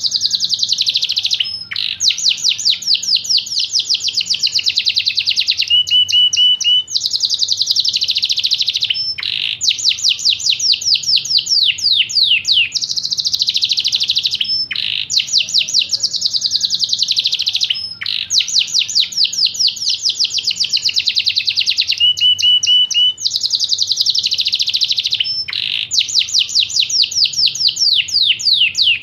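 Yorkshire canary singing: a continuous song of rapid trills and rolls, one phrase after another, with a brief break every few seconds.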